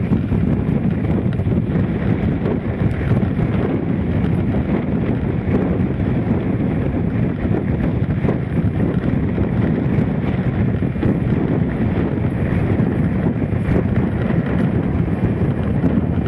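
Strong wind buffeting the camera microphone: a loud, steady, low rumbling roar with no letup.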